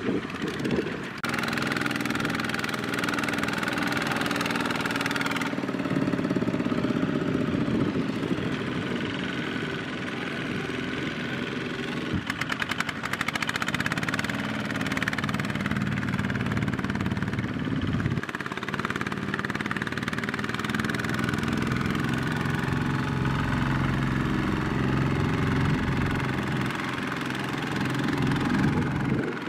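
Single-cylinder diesel engine of a two-wheel walking tractor running under load as it pulls a trailer loaded with rice sacks through mud. The engine note changes abruptly a few times, with a rapid ticking for a couple of seconds near the middle.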